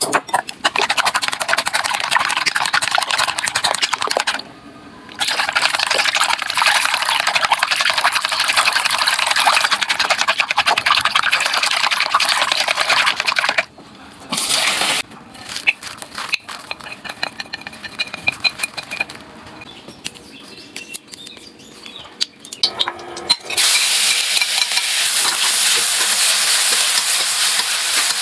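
Cooking sounds in several short cuts: a steady hiss, a quieter stretch of utensil clicks and scraping, then food sizzling in a hot pan from near the end.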